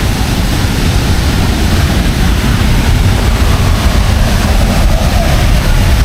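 Steady, loud roar of a nearby waterfall, with a heavy low rumble underneath.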